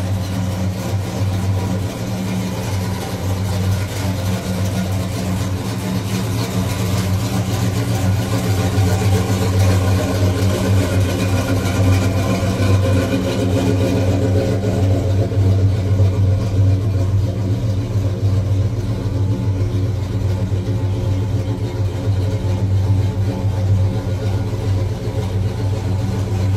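1967 Pontiac GTO's V8 engine idling steadily, a low, even running sound that grows a little louder midway.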